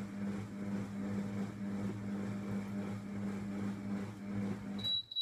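Monsieur Cuisine food processor's motor humming steadily as it stirs and warms butter, egg and sugar at speed 2 and 60 °C. Near the end the motor cuts off and the machine starts beeping high and regularly, signalling that the timed program has finished.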